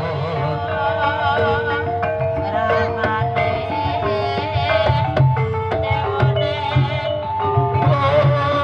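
Live ebeg music in dangdut kreasi style: hand drums keep a steady beat under held, wavering melody lines, played over a sound system.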